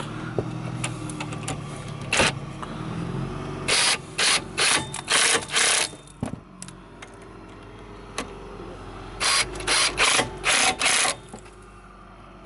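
Ratchet wrench tightening bolts: two runs of about five short, loud ratcheting strokes, with a pause between them.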